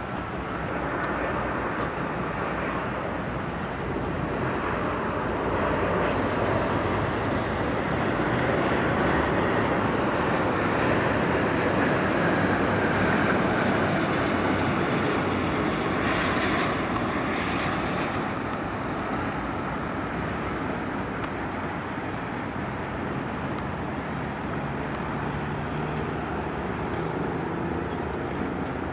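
British Airways Airbus A350 jet on final approach, its Rolls-Royce Trent XWB turbofans making a steady rushing roar. The noise swells to its loudest around the middle, with a faint whine gliding down in pitch, then eases as the jet flares over the runway.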